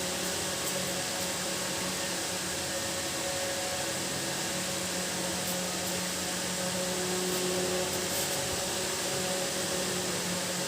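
Steady machine-like hiss with a constant low hum, unchanging throughout, such as a running fan or motor makes.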